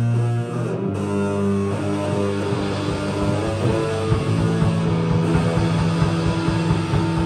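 Live rock band playing: electric guitar and bass holding long, sustained notes, with the drum kit coming in on a steady beat about two and a half seconds in.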